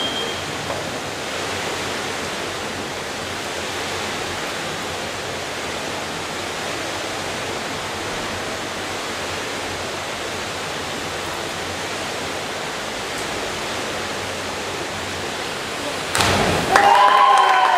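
Steady hiss of a large indoor pool hall while the pair stand still on the platform. About sixteen seconds in, the two synchronised divers enter the water with a splash, and cheering starts right after.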